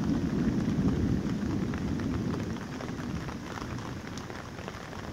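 Distant thunder rumbling and slowly dying away, from a thunderstorm about 3–4 km off, over steady light rain with small drops ticking on leaves.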